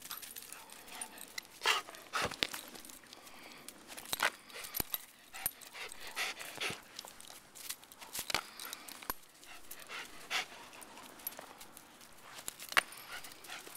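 A large dog panting close by after fetching a frisbee, with scattered sharp clicks and knocks.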